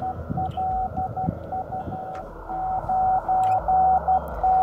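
Morse code (CW) from an HF transceiver's speaker: a single-pitch tone keyed in dots and dashes over receiver hiss, with a short break a little after two seconds in. It is a station answering the summit station, sending both callsigns (LU1MAW DE LU9DDJ).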